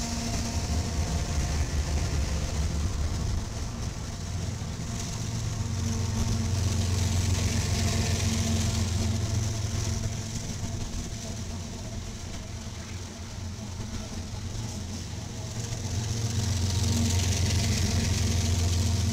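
Diesel engines of Union Pacific freight locomotives running as the units pass one after another, a deep steady drone that swells and eases as each locomotive goes by, over the noise of the train rolling on the rails.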